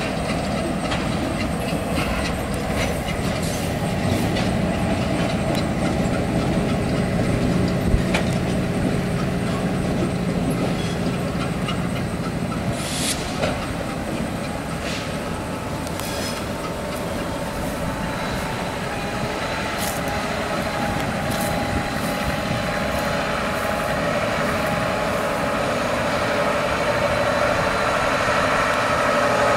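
Freight train cars rolling past on the rails: a steady running noise with scattered sharp clicks from the wheels and, in the second half, a faint high ringing.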